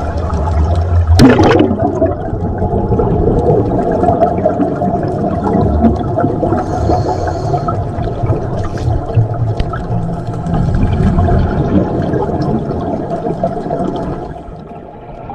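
Underwater sound of scuba diving: exhaled bubbles from the diver's regulator gurgling and rushing past the camera, with a sharp click about a second in.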